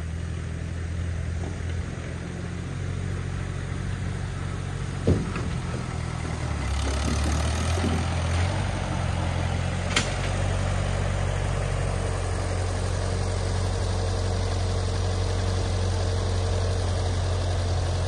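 Allis-Chalmers D10 tractor's four-cylinder gasoline engine running at a steady low speed as the tractor is driven onto a trailer. The engine note shifts briefly about seven seconds in, and two sharp knocks come about five and ten seconds in.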